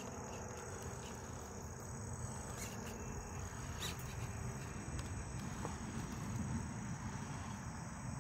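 Crickets chirping steadily in the background, over a faint low rumble.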